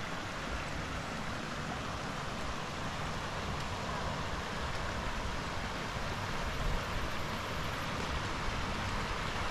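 Shallow river running over rocks beside a concrete low-water crossing: a steady hiss of flowing water, with a low, uneven rumble underneath.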